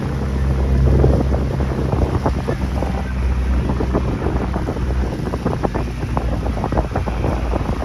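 Wind buffeting the microphone over the steady low hum of a motorboat engine running along at pace.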